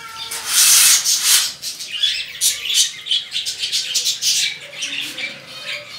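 A flock of budgerigars chattering with rapid high chirps. A brief, louder rushing burst of noise comes about half a second in.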